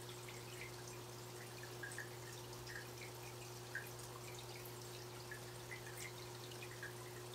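Aquarium water dripping and plinking, small irregular drops or bubbles at the surface several times a second, over a steady low hum.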